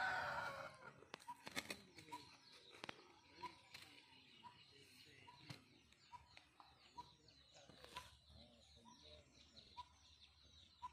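Faint birdsong: one bird repeats a short note at a steady pace, a little under twice a second, while others chirp faintly, with a few light clicks and a brief scrape at the very start.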